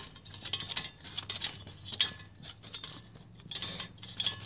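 Small metal parts of a Primus Classic Trail gas stove clicking, clinking and scraping as its metal plate with fold-out arms is threaded onto the burner by hand.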